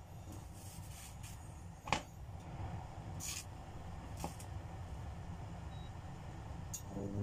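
Oil heating in a non-stick pan on an induction cooktop: a low steady rumble with a few sharp pops and clicks, and one louder knock about two seconds in.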